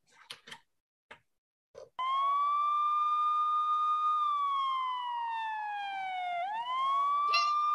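A siren wail starts about two seconds in, after a few faint ticks. One tone holds steady, slides slowly down, then swings quickly back up near the end.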